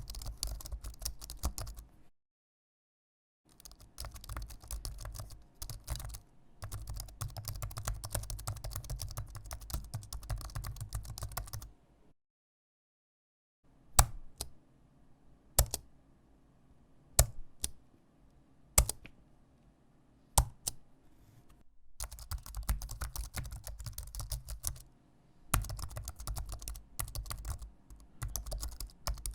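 Fast typing on a mechanical computer keyboard, rapid key clicks in runs. It stops twice for a second or two. In the middle comes a stretch of single, louder keystrokes about every second and a half before fast typing resumes.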